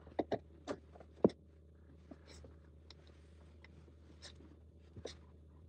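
A person shifting about and climbing off a cardboard platform bed covered with a yoga mat: scattered scraping and rustling, with several sharp clicks and knocks in the first second and a half, the loudest about a second in, and another near the end.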